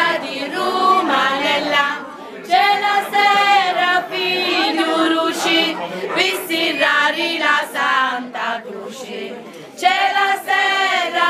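A group of women singing together in chorus, in phrases of long held notes with short breaks between them.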